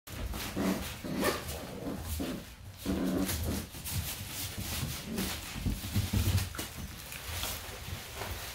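Dog whimpering in a string of short cries, some louder than others.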